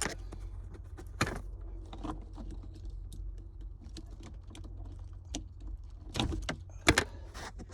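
Plastic clicks and rattles of a car wiring-harness connector being worked loose by hand from an aftermarket alarm harness, with a sharp knock about a second in and a cluster of louder clicks near the end.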